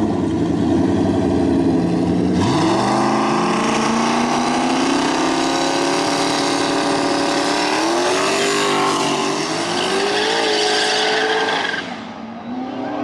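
Two Ford Mustangs racing from a standing start: the engines rev at the line, then launch about two and a half seconds in, rising steadily in pitch as they accelerate hard, with an upshift near the middle followed by another climb. The sound drops off sharply near the end as the cars pull away.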